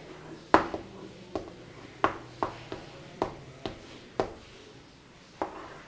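Chalk on a chalkboard while numbers are written: a string of about ten short, sharp taps at uneven spacing as the chalk strikes the board.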